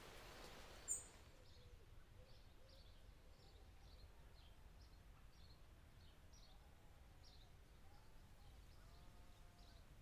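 Faint birds calling: short high chirps repeating every half second or so, with a few low whistled notes in the second half. A sharp click about a second in cuts off a steady hiss.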